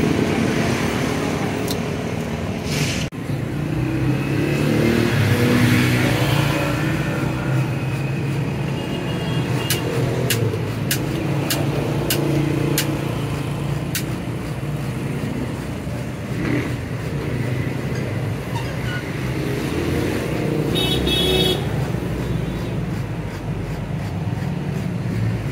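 Steady road traffic with engines running and vehicles passing. A run of about seven sharp clicks comes in the middle, and a short horn toot sounds near the end.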